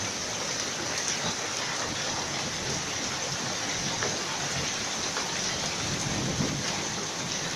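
Hailstorm: hail and rain pelting a garden as a steady dense hiss, with scattered sharp clicks of hailstones striking.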